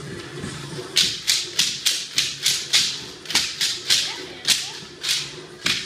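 A saap, the folding wooden lattice clapper of bhangra, clacking in rhythm: sharp strikes at about three a second from about a second in, thinning to a few spaced ones near the end.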